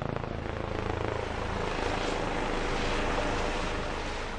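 Intro sound effect: a dense whooshing rumble, like a passing aircraft, that swells in and then slowly fades away.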